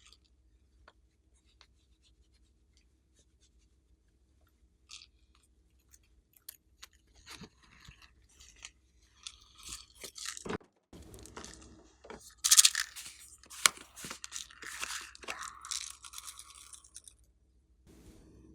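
Glossy slime being squished and pulled by hand. Scattered sticky clicks and pops at first, turning into dense crackling and popping from about halfway, loudest about two-thirds of the way through.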